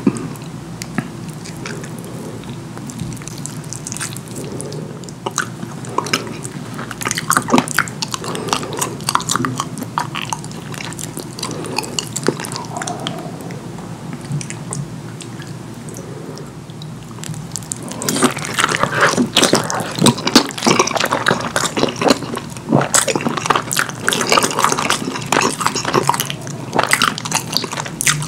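Close-miked wet chewing and lip smacking of saucy curry food, full of sticky mouth clicks; the chewing grows busier and louder about two-thirds of the way in.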